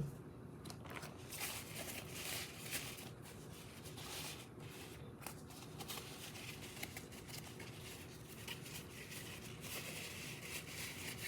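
Faint rustling, light clicks and small knocks of small items being handled in a fabric bag.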